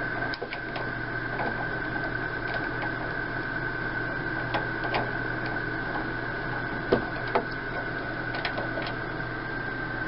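Scattered small clicks and knocks of a hand screwdriver working screws out of a microwave's plastic trim strip, over a steady high-pitched whine in the background.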